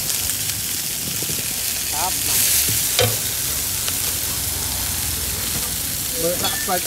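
Yellow egg noodles, bean sprouts and greens sizzling in a hot wok as they are stir-fried with a metal spatula. The sizzle swells briefly about two seconds in, and the spatula gives one sharp clack against the pan about three seconds in.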